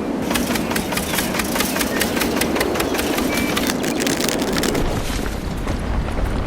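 Small motor running steadily, with a dense, irregular clatter of sharp clicks and knocks over it.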